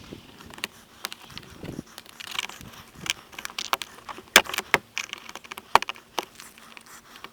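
Plastic interior door trim of a car being worked loose by hand: scattered clicks, taps and short scraping sounds, with a few sharper clicks a little past the middle.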